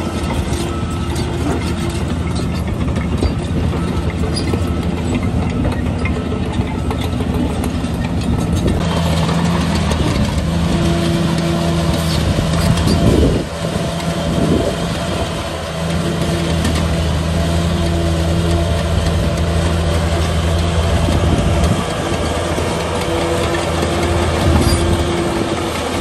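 A D20P bulldozer's diesel engine running steadily as the machine works, with the engine note briefly rising and falling about halfway through.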